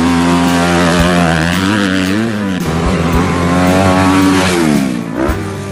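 Motocross dirt bike engine revving under throttle. It holds a high pitch, dips briefly a little over two seconds in, and falls away near the end as the throttle closes.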